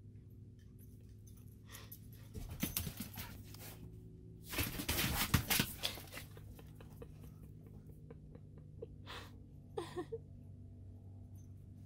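Dogs romping on sand just outside an open trailer door, making noisy scuffling bursts, the loudest about halfway through and two short ones near the end, over a steady low hum.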